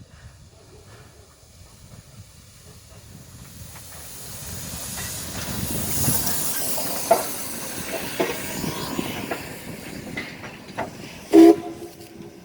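Steam locomotive venting steam: a hiss that swells to a peak about halfway through and then eases, with scattered metallic knocks. Near the end comes one brief, loud pitched blast.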